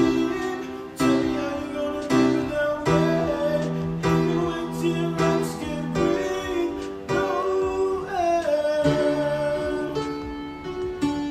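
A man singing with guitar accompaniment, the chords struck about once a second under his held notes.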